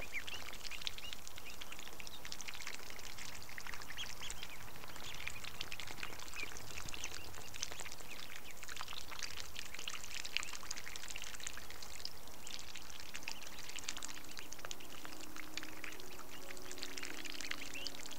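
Mallard ducklings and their mother dabbling in shallow water: a steady patter of tiny splashes and clicks as their bills sift the water's edge. Soft music fades in near the end.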